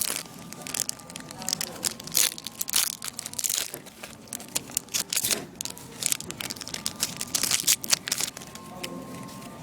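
Foil trading-card booster packs being torn open and crinkled by hand: an irregular run of crackling and tearing.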